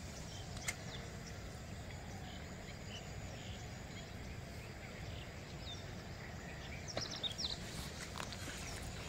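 Quiet outdoor ambience: a low, steady rumble with a single click about a second in and a few short, high chirps near the end.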